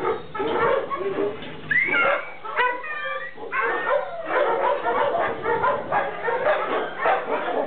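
Several shelter dogs in kennels barking over one another, with a high whining yelp about two seconds in and a few sliding yips just after. From the middle on, the barking thickens into a continuous overlapping chorus.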